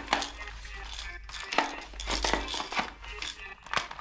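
Plastic toy guns clattering and knocking against each other as they are handled in a cardboard box, with irregular clicks and knocks.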